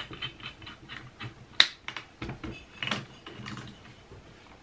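Hole saw being fitted onto a cordless drill: a string of small clicks and knocks as the chuck is twisted tight on the hole saw's arbor, two sharper knocks standing out about one and a half and three seconds in.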